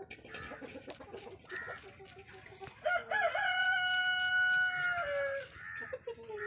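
A rooster crows once about three seconds in: one long call of some two and a half seconds, rising at the start, held, then falling at the end, and the loudest sound here. Before it comes light, scratchy scraping of a knife blade on small sardines being scaled.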